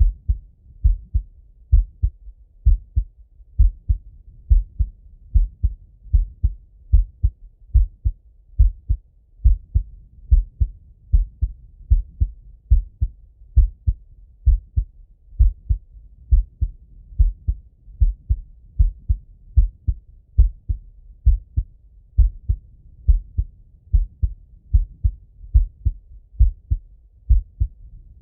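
A man's heartbeat heard through a stethoscope: a steady, slow lub-dub of low, dull thuds, about one beat a second.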